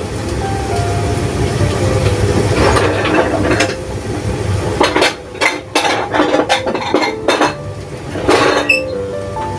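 Spatula stirring sponge gourd in a pan, clinking and scraping against the pan in a quick string of sharp knocks in the second half, over the frying sizzle.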